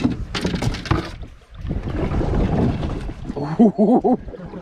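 Canoe paddling: a few sharp knocks of the paddle against the canoe in the first second, then the rush of a paddle stroke through the water. A short burst of voice near the end.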